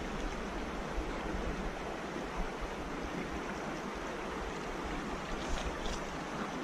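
Steady rushing noise of water and wind outdoors, with an uneven low rumble underneath.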